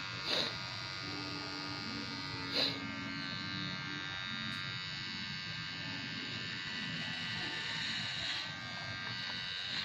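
Electric hair clipper buzzing steadily as it cuts the hair at the side of the head, with two short louder noises about half a second and two and a half seconds in.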